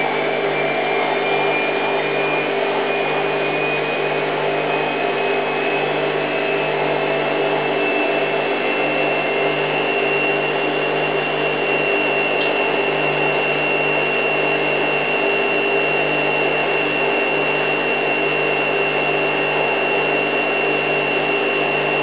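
Hoover Time Manager H130E washing machine on its final spin, the drum motor running at high speed with a steady whine that climbs slightly in pitch over the first ten seconds or so and then holds.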